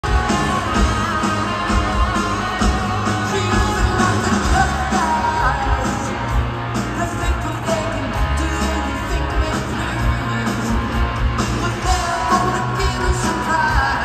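Live rock band performing through a large concert sound system, with electric guitars, a steady drum beat and a lead singer, recorded from the audience.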